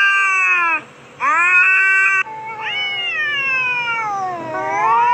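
Cats yowling at each other in a fight standoff: several long, drawn-out calls in a row, the later ones gliding down in pitch and then rising again.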